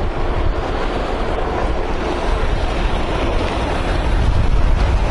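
Wind buffeting the microphone with a heavy rumble, over a steady wash of water.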